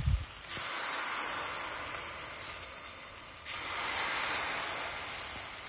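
Buckwheat pancakes sizzling in a frying pan: a steady hiss that swells and eases slightly. A brief low knock at the very start comes from a spatula turning a pancake against the pan.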